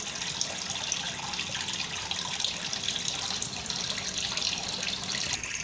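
Tap water running steadily into a stainless steel sink and splashing through a plastic colander as dried Chinese herbs are rinsed by hand.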